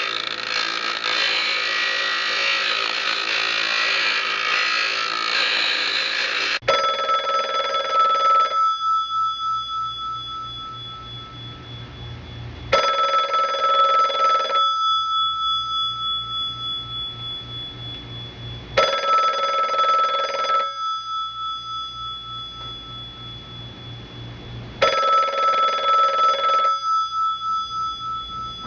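Old telephone bell ringing four times, about six seconds apart, each ring a rattling burst of about two seconds that then dies away. Before the first ring, a dense harsh noise cuts off about six and a half seconds in.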